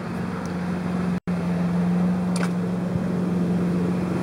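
A steady low hum over a hiss of background noise, dropping out for an instant about a second in.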